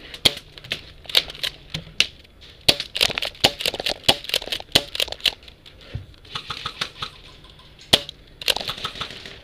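Airsoft gunfire: many irregular sharp cracks and snaps, thickest from about two and a half to five and a half seconds in, with louder single cracks near the start and about eight seconds in.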